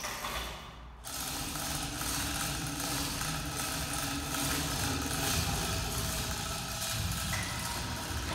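Electric chain hoist motor running steadily as it lifts an aluminum boat hull, switching on about a second in.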